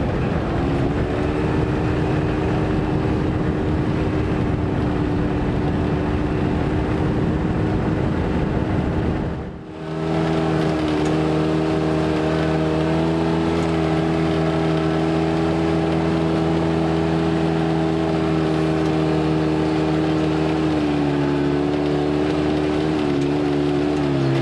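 Off-road vehicle engine running at a steady speed, a droning hum with a heavy rumbling noise over it for the first half. About ten seconds in the sound dips briefly, then the engine drone carries on cleaner, with its pitch dropping slightly a couple of times near the end.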